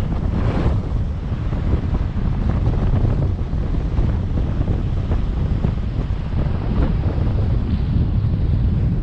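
Wind buffeting the microphone: a loud, low, gusting rumble with a brief stronger gust about half a second in.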